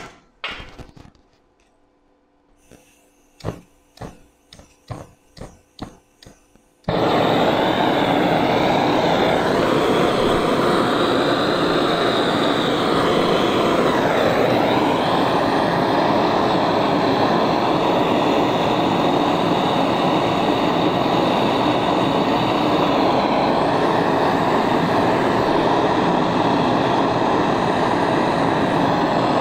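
Handheld gas torch being lit: a quick run of sharp igniter clicks, then the flame catches about seven seconds in and runs with a steady loud rush while it is held on the steel.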